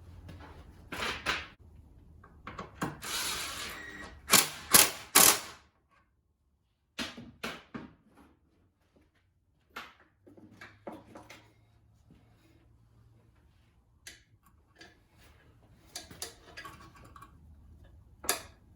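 Irregular clicks, knocks and clatter of hand tools and metal parts being handled, with three sharp loud clacks in quick succession about four to five seconds in.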